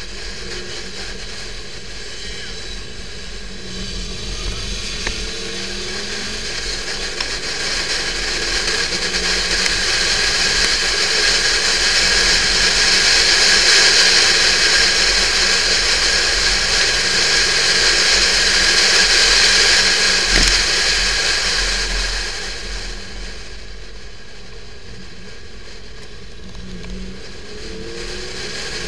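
Onboard a Porsche 911 type 996 at speed: a hiss of wind and road noise over the low running of its flat-six engine. The rush builds for several seconds to a loud peak, then drops off sharply a little after twenty seconds.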